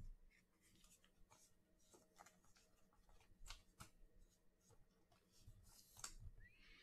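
Faint rustling and small clicks of a trading card being handled and slid into a clear plastic sleeve, with a slightly louder rustle about six seconds in.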